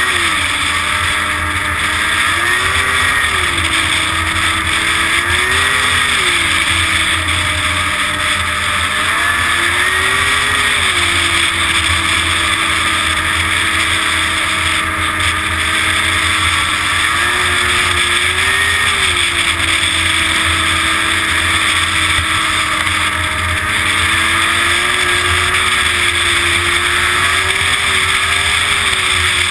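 Snowmobile engine running at speed along a trail, its pitch rising and falling several times as the throttle opens and eases, over a steady rushing noise.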